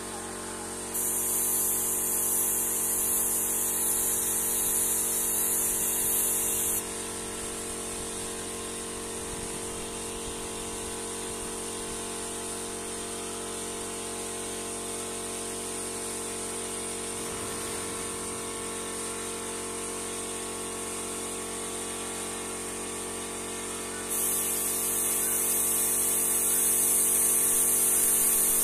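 Airbrush spraying paint with a steady hiss, in two spells: one starting about a second in and lasting some six seconds, another starting near the end. Under it the air compressor hums steadily throughout.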